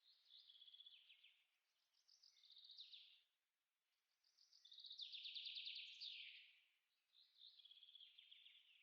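A songbird singing four short, fast trilled phrases, each about a second long, with pauses between them. The third phrase, about halfway through, is the longest and loudest.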